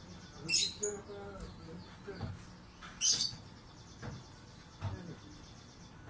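Orange-headed thrush giving short, high calls: two louder ones about half a second and three seconds in, with fainter calls in between.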